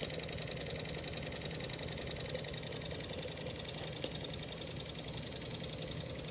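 Jensen Model 20R toy steam engine running steadily with a fast, even beat. It runs very quietly, with no slop anywhere in the engine and no leaks from its freshly silver-soldered steam line.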